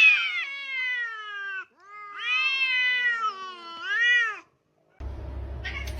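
A cat meowing in long drawn-out calls: a long falling meow, a second long meow, then a short rising-and-falling one. A second later, a low steady hum comes in.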